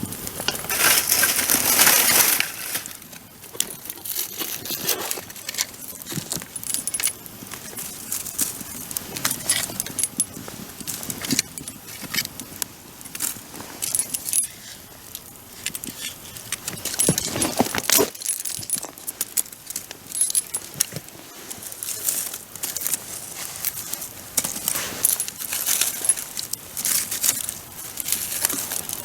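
Wood bonfire crackling, with irregular sharp snaps over a low hiss and a denser, louder spell of crackle in the first two seconds.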